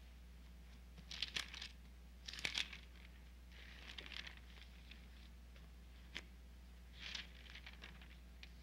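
Bible pages and a loose sheet of paper being turned and handled: several brief, faint paper rustles, with a sharp click about six seconds in. A steady low hum sits underneath.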